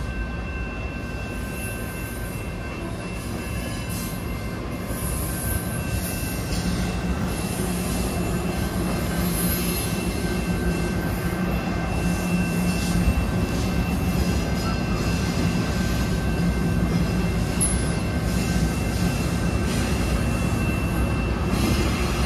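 Diesel-hauled commuter train of bi-level passenger cars rolling through a level crossing, its wheels squealing on the rails with a steady high tone over the rumble. The locomotive's engine hum builds over the first several seconds and then holds.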